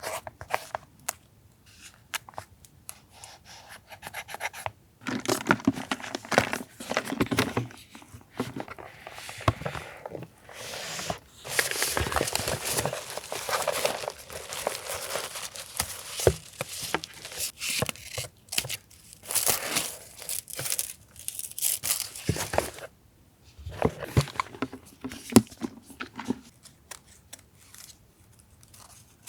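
Paper being torn and handled: several long stretches of tearing and crinkling, with quieter gaps of small taps and clicks in between.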